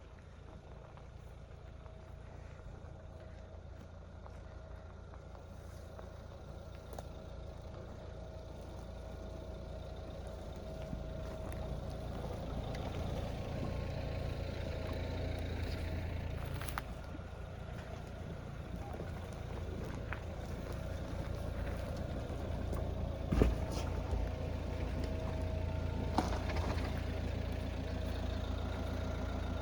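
Dacia Duster 1.5 dCi four-cylinder turbodiesel running, a steady low rumble that grows gradually louder, with two sharp knocks near the end, about three seconds apart.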